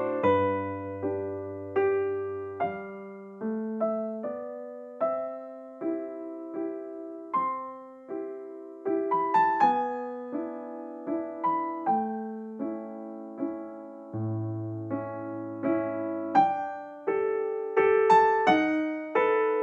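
Background piano music: a slow melody of single struck notes that fade away. Low bass notes are held under it near the start and again about two-thirds of the way through.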